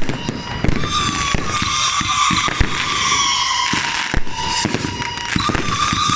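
Fireworks going off in a dense volley: many sharp bangs and crackles in quick succession, over a steady high whistle.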